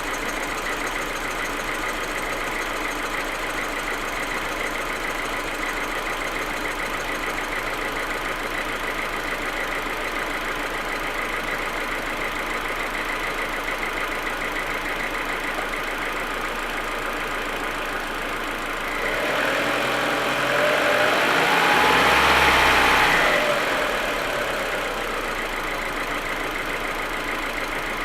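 Audi A4 1.8T's turbocharged four-cylinder engine idling roughly and misfiring, a fault that the owner finds only while the engine is cold. About two-thirds of the way through, a louder swell lasts a few seconds, rising and then falling in pitch.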